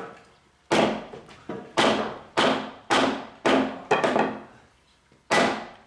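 Hammer blows knocking on timber: about seven sharp strikes, roughly two a second with a short pause near the end, each ringing briefly. The slats of a renji-koshi wooden lattice are being driven into the mortises of the rail.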